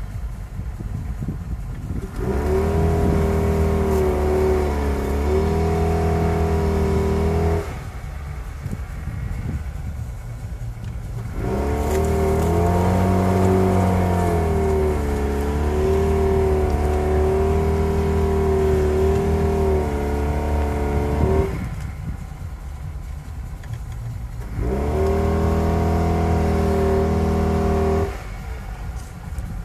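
Jeep Patriot's engine revving hard in three held bursts, about five, ten and three seconds long, each holding a steady pitch before dropping back to a low rumble, as its wheels spin in hard-packed snow.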